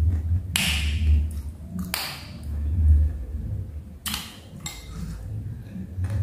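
Someone eating: a metal spoon scraping and clinking against a ceramic bowl three or four times, with muffled chewing in between.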